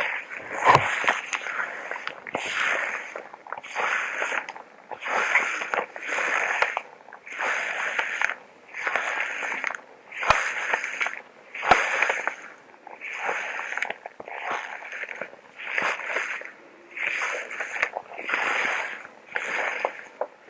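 Steady, rhythmic breathing in a hazmat suit, breaths in and out following each other closely, about one full breath every second and a half. Three sharp clicks cut through, one just after the start and two about ten and twelve seconds in.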